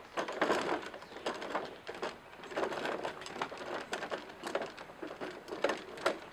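Plastic wheels of a toddler's ride-on push car rolling and rattling over wooden deck boards, with irregular clicks and knocks as they cross the board gaps.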